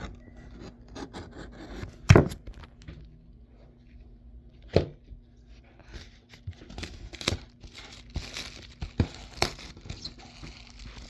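Blu-ray packaging being torn open and crinkled by hand, with a few sharp clicks and knocks as the case is handled.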